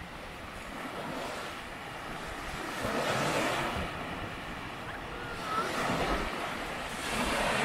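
Small Baltic Sea waves washing up onto a sandy beach, swelling about three seconds in, again near six seconds and near the end.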